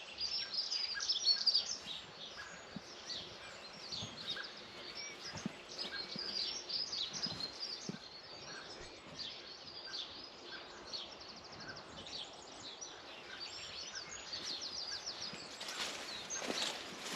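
Morning chorus of several songbirds singing and chirping at once, with one bird repeating a short lower note over and over. Near the end a broad rushing noise swells up.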